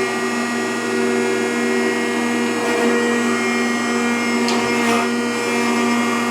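Rockford 36-inch hydraulic open-side planer running with a steady, multi-tone mechanical whine from its hydraulic drive. It is running for the first time after some 30 years in storage, freshly refilled with oil.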